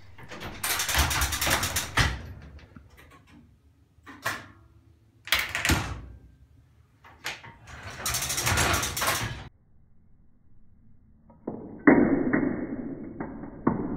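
Semaphore signal arm and its signal coupling mechanism being worked, with metal clattering and rattling. There are two stretches of rattle and a hard knock in between. Near the end comes a duller, muffled clatter with a sharp knock.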